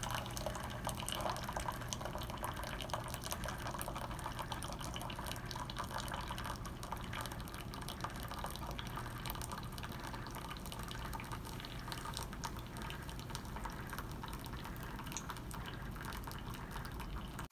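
Keurig single-cup coffee brewer dispensing, a thin stream of coffee pouring steadily into a paper cup with a fine, dense spatter.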